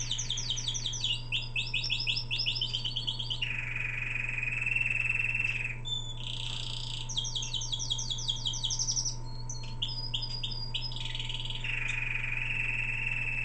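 Young male yellow canary singing: fast runs of repeated high chirping notes, each run ending in a lower, rolling trill held for about two seconds. The song pauses briefly in the middle and then starts a second phrase built the same way.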